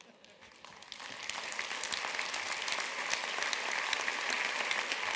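Audience applauding. It starts from near silence and swells within the first second into steady clapping.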